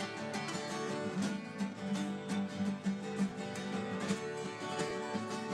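Acoustic guitars strumming and picking together in a steady rhythm, an instrumental stretch of an acoustic song.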